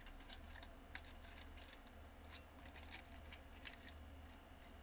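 Faint scattered clicks and light handling noises of craft supplies being picked through, over a low steady hum.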